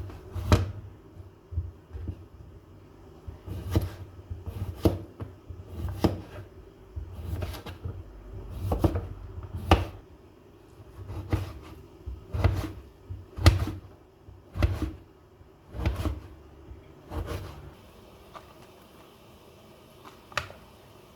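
A series of irregular knocks and clatters, about one a second, with low thumps beneath them, like objects being handled and set down around a room. They stop about 18 seconds in, and one more click follows near the end.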